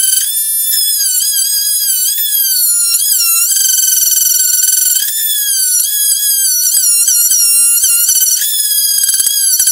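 Oscillating multi-tool saw cutting into a wooden hull plank to deepen a scarf joint: a continuous high-pitched whine that sags in pitch each time the blade is pressed into the wood and recovers as it eases off.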